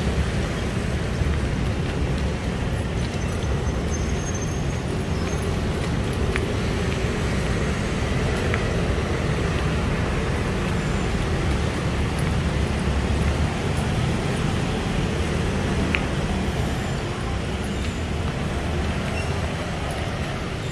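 Steady road traffic noise from passing vehicles.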